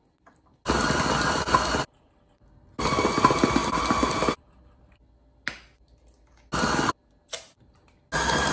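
KitchenAid Professional 6000 HD stand mixer whipping frosting, switched on and off in four short bursts that start and stop abruptly and last from under half a second to about a second and a half.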